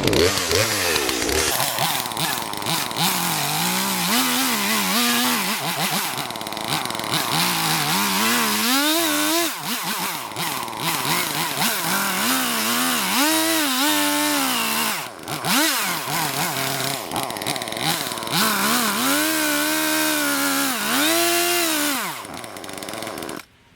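Chainsaw running hard while cutting a log with a freshly sharpened chain, its engine pitch dropping and rising again and again as the chain bites into the wood; the sound stops abruptly near the end.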